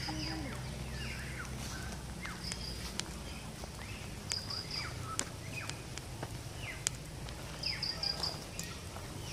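Birds calling in tropical trees: many short downward-sliding chirps and, several times, a quick run of three or four high notes. Footsteps on concrete steps and a few sharp ticks come through, over a low steady rumble that fades about halfway through.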